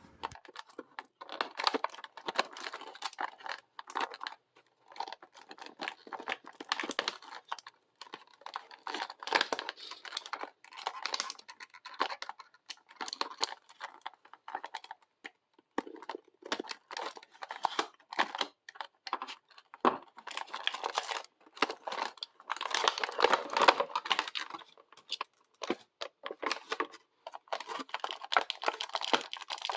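Hands working an action figure's plastic and cardboard packaging: intermittent crinkling and tearing with sharp plastic clicks.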